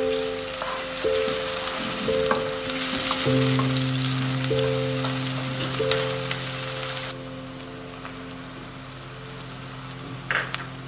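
Chopped onions frying in hot oil in a stainless steel pan, with a steady sizzle and the occasional scrape of a wooden spatula stirring. The sizzle falls quieter about seven seconds in. Soft background music with held notes plays underneath.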